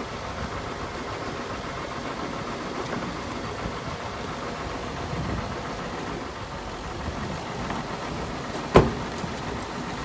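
Diesel engine of heavy earthmoving machinery running steadily, with a single sharp knock about nine seconds in.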